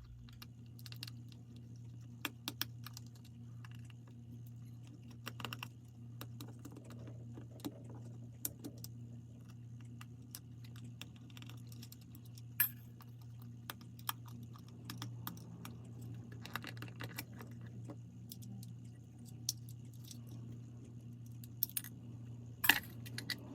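Scattered small metallic clicks and clinks of a screwdriver and tiny screws as the screws holding a quartz clock movement to its dial are taken out, a few sharper clicks near the middle and the end, over a faint steady low hum.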